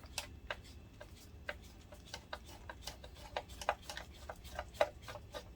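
Irregular light clicks and ticks, about three a second, from a screwdriver working the small screws that hold a DLP projector's optic assembly. One louder click comes near the end.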